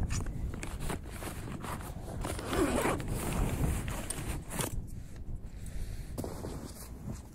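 A run of short, irregular scraping strokes, loudest a little before halfway through.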